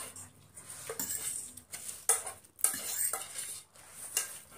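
Forks scraping and clinking against plates as noodles are eaten, with noodles being slurped in between.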